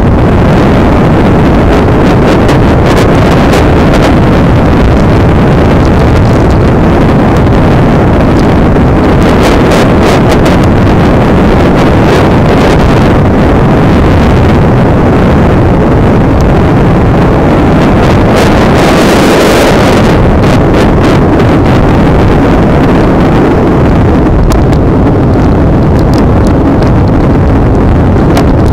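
Loud, steady wind rush on the microphone of a Daymak Kingston 72 V electric scooter riding at speed, with scattered short clicks.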